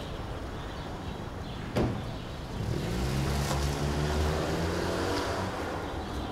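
A single sharp thud just under two seconds in, then a Hyundai i30 hatchback's engine running with a low hum that rises slightly in pitch from about two and a half seconds in and fades a little before the end.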